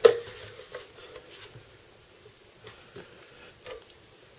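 A gaming mouse set down on a plastic digital kitchen scale with one sharp knock, then faint scattered taps and rubbing as hands handle the mouse and scale.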